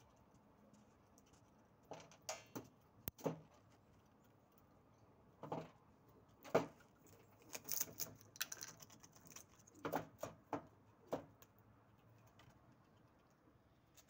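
Eurasian red squirrel scrabbling at a large pine cone on a window ledge: irregular clicks and scratches in several short clusters, the loudest about six and a half seconds in.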